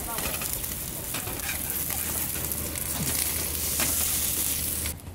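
Kimchi pancakes sizzling in oil in a nonstick pan, with a metal slotted spatula scraping and tapping against the pan as it presses and turns them. The sizzle cuts off abruptly just before the end.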